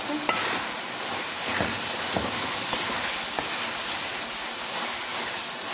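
Chicken and spiced masala sizzling in hot oil in a karahi, at the frying stage where the oil has separated at the sides. A wooden spoon stirring through it gives a few light knocks and scrapes in the first few seconds.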